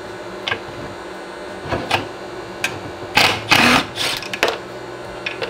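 A cordless driver runs in two short bursts about three seconds in, working on the nuts that hold a brake master cylinder to its booster, with a few light clicks and clanks of metal parts before and after.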